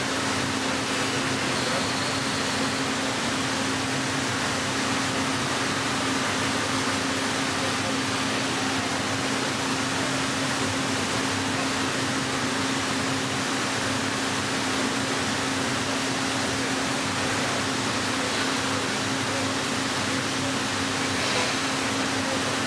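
Heller CNC four-roll hydraulic plate bending roll running as it rolls a plate: a steady hum at one pitch over an even hiss of machine noise.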